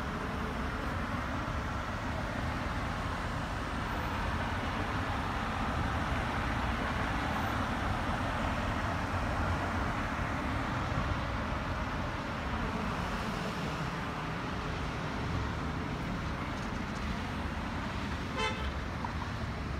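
Steady road-traffic noise, with one brief car-horn toot near the end.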